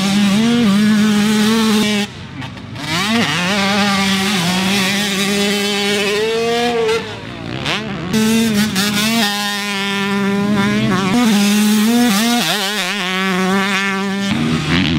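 Twisted Development-tuned Yamaha YZ125 two-stroke engine at high revs, its pitch held high with quick dips and rises as the rider shifts and works the throttle. The sound jumps abruptly a few times where the shots change.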